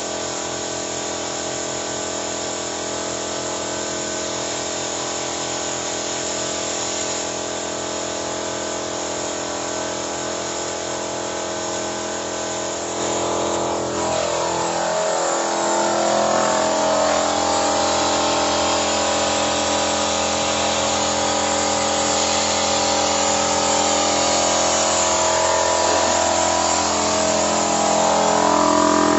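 Portable electric air compressor running steadily: a constant motor hum with a hiss of air. It grows louder about halfway through.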